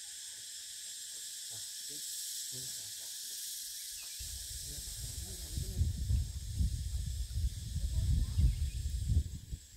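Steady high-pitched hiss of insects, crickets or cicadas, in the bush. From about four seconds in, an irregular low rumbling starts and becomes louder than the insects.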